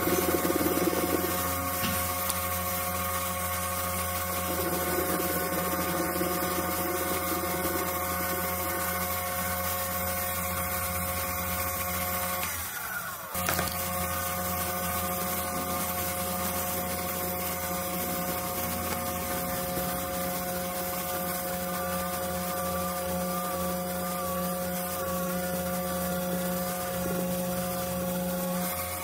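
A mini metal lathe runs with a steady motor whine while facing and then drilling a round aluminium bar, with some rough cutting noise near the start. About halfway the whine glides down and drops out briefly, then picks up again.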